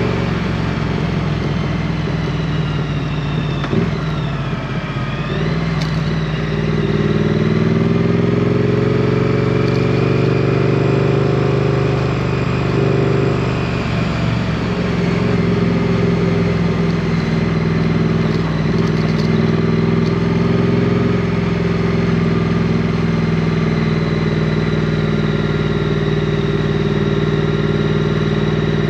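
Triumph Street Twin's 900 cc parallel-twin engine running while riding. Its note dips and climbs again about four to six seconds in, then holds steady.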